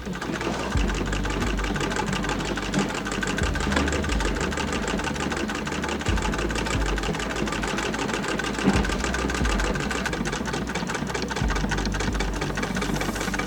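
Singer 99K hand-crank sewing machine sewing: the needle and mechanism clatter in a fast, even rhythm as the handle is turned.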